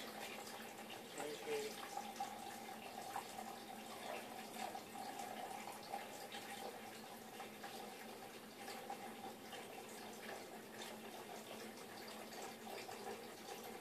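Quiet room tone: a faint steady hiss with a low hum, and a few soft clicks and rustles.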